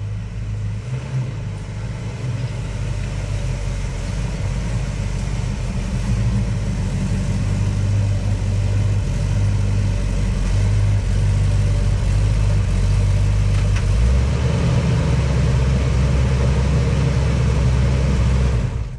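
Buick 455 big-block V8 in a 1972 Buick GS running under way, a steady low engine drone that builds over the first several seconds and then holds. About fourteen seconds in, the low rumble deepens.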